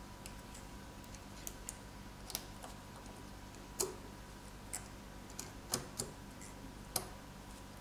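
Light clicks and taps, about a dozen at uneven intervals, as a thin metal pick and fingertips seat a smartphone's main board and tuck its flex cables into place inside the phone frame.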